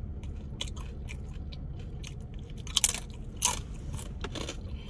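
Close-up crunching and chewing of fried tortilla chips, with irregular crisp cracks and a couple of louder crunches past the middle.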